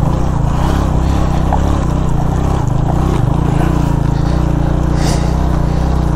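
Suzuki GS150 motorcycle's single-cylinder engine running steadily under way.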